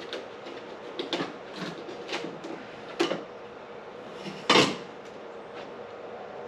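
Metal tubing and tools being handled: a series of separate knocks and clanks, the loudest about four and a half seconds in, over a faint steady hum.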